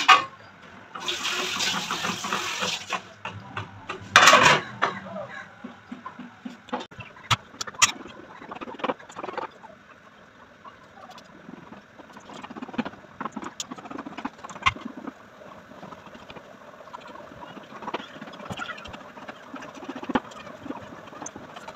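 A couple of seconds of water-like rushing hiss, then a loud knock about four seconds in. After that a potato is peeled by hand with a knife, with many small scraping clicks as the blade cuts and peel drops into a steel colander.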